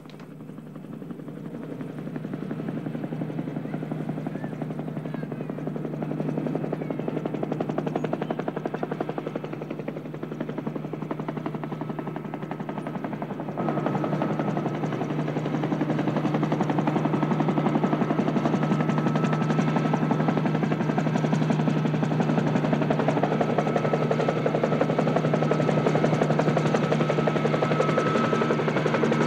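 A steady, rapidly chopping machine drone with a low hum. It fades in at the start, grows louder, and steps up suddenly about fourteen seconds in.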